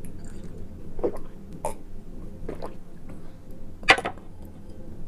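A person drinking water from a glass: short gulping swallows about a second apart, then a louder, sharper sound near four seconds in as the drinking ends.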